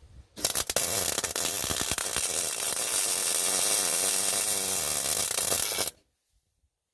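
Wire-feed welder arc crackling steadily for about five and a half seconds, then cutting off abruptly: a weld being laid on a broken bolt to get a hold for extracting it.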